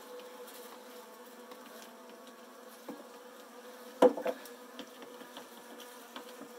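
A package of Saskatraz honeybees buzzing steadily in a low, even hum, with a sharp knock about four seconds in and a fainter one just before it.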